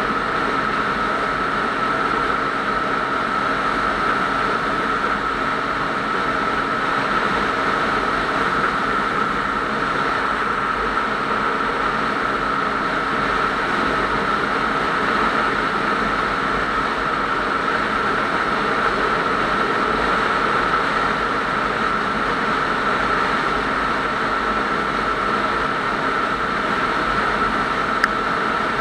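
Motorcycle cruising at a steady speed: engine running evenly under heavy wind and road noise, with a steady high whine. One small click near the end.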